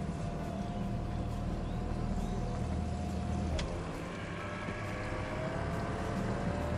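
20 hp Mercury four-stroke outboard motor running at low speed as the pontoon boat backs away from the dock. A single click comes a little past halfway, after which the engine note dips and then climbs as the motor speeds up.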